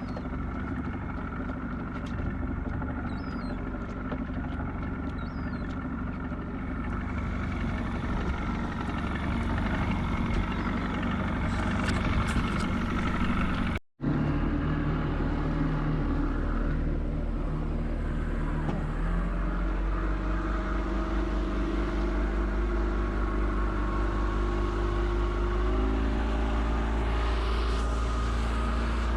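A boat's engine running steadily under way, a continuous low drone, with a brief break about halfway through.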